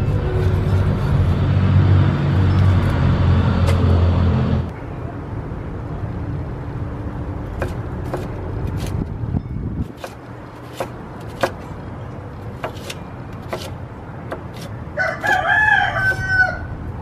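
Chef's knife chopping green bell pepper on a wooden cutting board, a sharp knock with each stroke. A loud low engine rumble fills the first few seconds and cuts off suddenly; near the end a rooster crows once.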